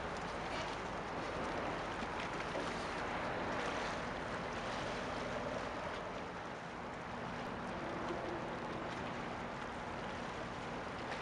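Steady outdoor noise of wind and water as a cargo ship passes, with a faint low hum joining about halfway through.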